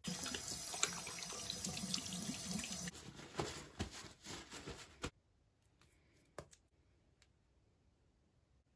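Water running from a tap into a sink, steady for about three seconds, then splashing unevenly before cutting off suddenly about five seconds in. A faint click follows a little later.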